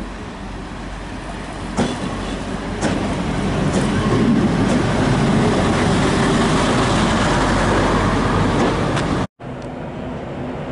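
A PLK rail maintenance trolley's engine running as it drives past close by, with a couple of sharp clicks from its wheels on the track; it gets louder as it comes alongside. Near the end the sound cuts off suddenly and gives way to a quieter steady rumble.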